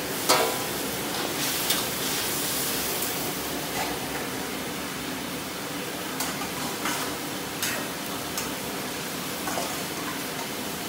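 Woks of softshell-turtle stew cooking over gas burners with a steady hiss, while a steel ladle and a steel bowl knock and scrape against the wok several times; the loudest knock comes just after the start.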